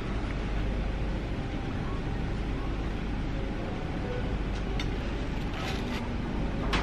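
Café room tone: a steady low hum with faint murmuring voices, a few light clicks, and one sharper click near the end.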